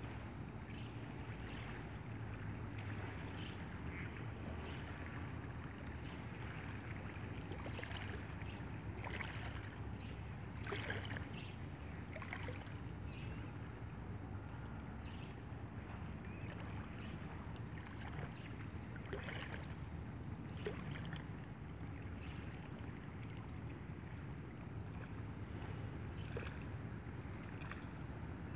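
Water lapping and splashing close by, with a steady low rumble underneath.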